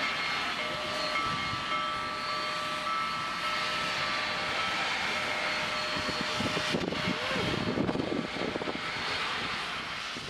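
Union Pacific Big Boy steam locomotive running: a steady roar and hiss carrying several held tones, with no break.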